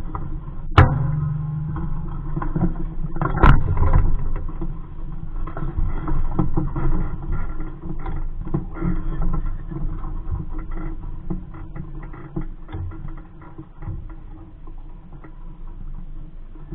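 Water slapping and lapping against the hull of a Coronado 15 sailing dinghy under way in a light breeze, with wind buffeting the microphone. Two sharp knocks on the boat about a second and three and a half seconds in.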